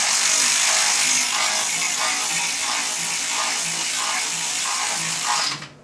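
A hand-held power tool, such as a power ratchet, runs steadily with a buzzing whir and hiss while tightening a bolt under the car, then stops abruptly near the end.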